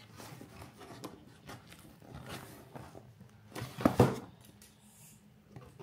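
Cardboard package being opened by hand: scattered light rustling and scraping, with one louder, brief, sharp sound about four seconds in.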